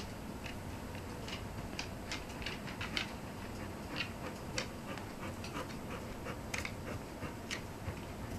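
A large dog's claws clicking irregularly on a wooden floor as it moves about restlessly, over a steady low background noise.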